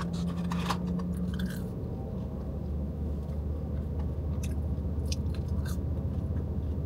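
A person chewing and biting McDonald's french fries close to the microphone, in small scattered crunches over a steady low hum.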